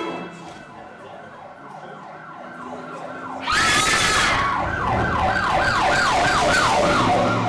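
Recorded emergency-vehicle siren played as a sound effect: a faint repeating wail at first, then loud from about three and a half seconds in. It rises sharply, then cycles in fast, regular up-and-down sweeps.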